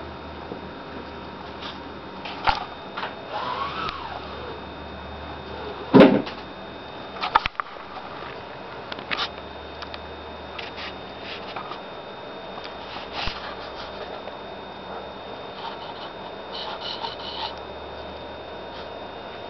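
A steady low hum and hiss from a camcorder's noisy sound track, with a cat sniffing faintly and scattered soft clicks from handling. One louder thump comes about six seconds in.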